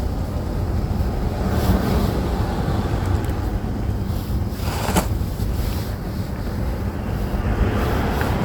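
Block of gym chalk being crushed and crumbled close to the microphone, a steady dense crunching with one sharper crack about five seconds in.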